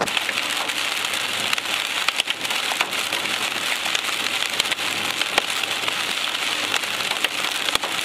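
Heavy rain pelting a car's roof and windshield from inside the moving car: a dense, steady patter broken by many sharp individual hits.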